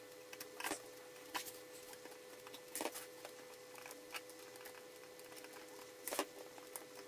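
Pliers and 3D-printed plastic frame parts clicking and tapping as rubber vibration dampener balls are worked through the plate's holes: scattered faint clicks, a few louder ones about a second in, near three seconds and near six seconds, over a faint steady hum.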